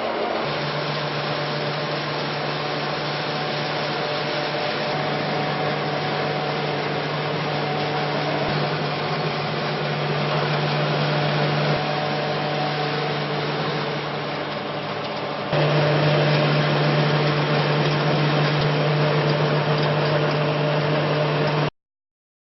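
Flat-die pellet mill running: a steady machine hum over a noisy grinding rush. It jumps abruptly louder about three-quarters of the way through, then cuts off suddenly near the end.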